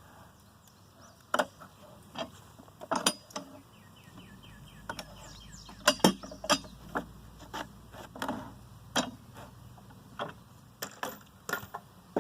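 Steel pallet buster levering a nailed board off a wooden pallet: irregular sharp knocks and cracks of wood and metal, with a short chattering creak about three seconds in as nails pull out of the wood.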